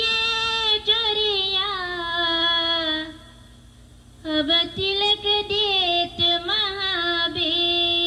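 A woman singing a biraha, the Bhojpuri folk song form, into a microphone: long held notes with wavering ornamental turns. She breaks off about three seconds in for a breath and comes back in about a second later.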